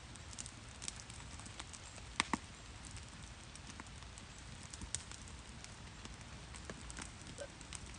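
Wood campfire crackling, with scattered irregular pops and two sharper snaps a couple of seconds in, over a low steady rumble.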